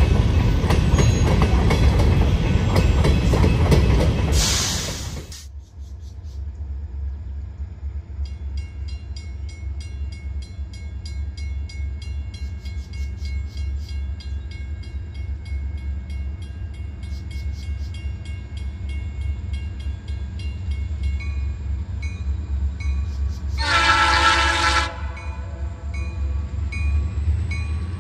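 Freight train with EMD diesel locomotives. Loud passing-train noise for about the first five seconds cuts off suddenly, and a steady low locomotive rumble follows. About three-quarters of the way through comes a loud blast of a multi-chime air horn lasting a second or so.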